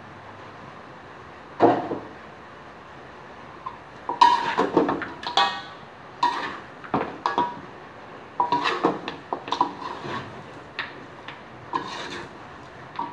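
Metal cooking utensils scraping and clanking against a wok while chicken pieces are stir-fried. There is a single clank about two seconds in, then an irregular run of scrapes and knocks from about four seconds on.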